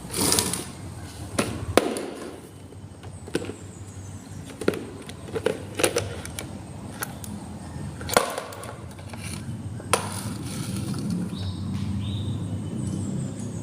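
Marbles rolling down a marble run, a low rumble broken by sharp, irregular clicks and knocks as they hit the track and each other; the rolling grows louder and steadier in the last few seconds.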